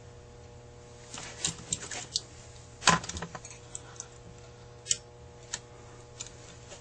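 Small metal clicks and rustles of hands fitting the accelerator pump linkage rod on a Carter AFB carburetor, the sharpest click about three seconds in.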